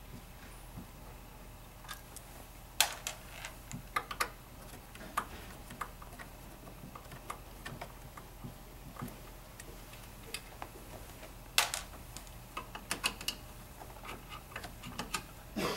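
Irregular clicks and taps of a screwdriver and metal parts on a massage chair's frame as a bracket is nudged loose from the side. There are two sharper knocks, about three seconds in and near twelve seconds.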